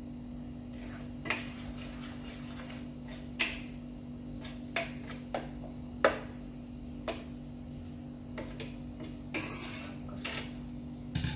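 Metal spoon knocking and scraping against a pan as melting jaggery is stirred, in scattered single clinks with a short scrape near the end. A steady low hum runs underneath.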